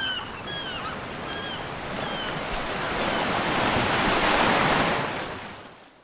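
Ocean surf: a steady wash of waves that swells as a wave breaks and is loudest about four to five seconds in, then fades out near the end. A few short falling chirps sound over it in the first two seconds.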